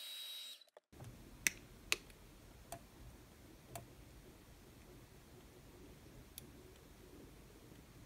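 Hair dryer blowing with a steady whine, cut off abruptly under a second in. Then a few light, sharp clicks as a thin sheet of anti-static bag plastic is worked under a sticker on the oscilloscope's plastic case.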